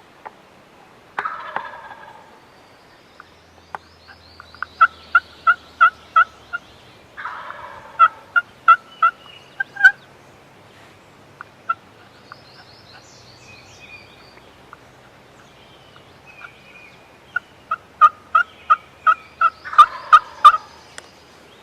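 Wild turkey gobbler gobbling three times, each gobble a short rattling burst, answering runs of evenly spaced turkey yelps. Small songbirds chirp faintly in the background.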